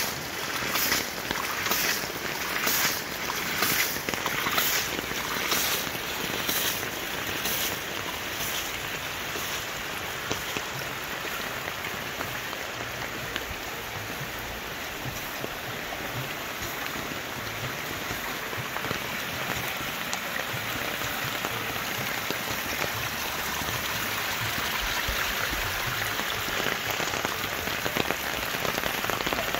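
PVC-and-stainless hydraulic ram pump beating regularly, its waste valve snapping shut about three times every two seconds over splashing water, the normal working cycle of the pump. The beats fade after about eight seconds, leaving a steady hiss of running water.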